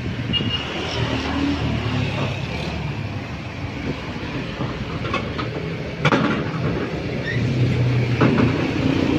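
Steady low rumble of heavy road traffic going past, with a few scattered knocks and one sharp bang about six seconds in.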